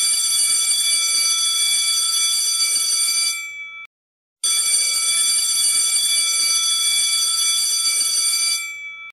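Electric school bell ringing as a steady buzzing tone, in two long rings of about four seconds each with a short break between, each fading and then cutting off. It is the bell that ends class.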